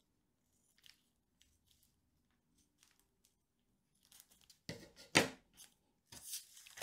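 Scissors snipping faintly through a folded plastic parachute sheet, then the thin plastic crinkling as it is handled and unfolded, with a sharp crackle about five seconds in.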